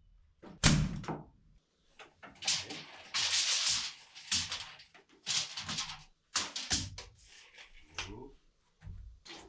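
Scrap-wood cabinet parts being handled and knocked into place: a run of sharp wooden knocks and thunks, with a noisy rush about a second long about three seconds in.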